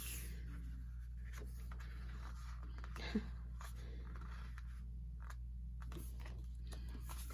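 Faint paper and card rustling and light taps as an album's mini photo book and inserts are handled, over a steady low hum.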